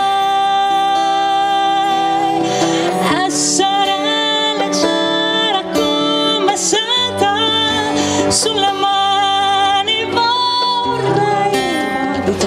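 A woman singing an Italian song live, holding long notes over strummed acoustic guitar, with djembe hand-drum accompaniment.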